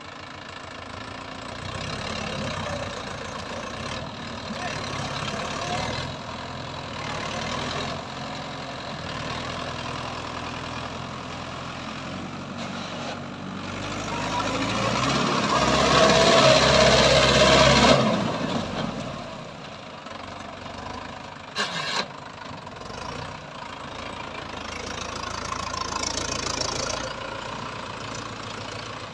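Mahindra Yuvo Tech+ tractor's diesel engine running steadily while working a rotavator through flooded paddy mud. It swells louder for a few seconds about halfway through, and there is a brief sharp knock some seconds later.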